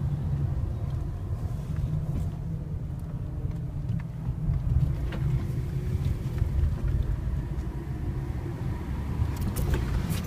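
Fiat Panda driving down a steep mountain road: steady engine and road rumble, with a few faint ticks.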